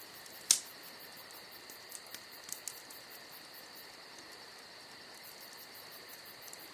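Burning firewood of a campfire crackling with a few sharp pops, the loudest about half a second in, over the steady song of crickets.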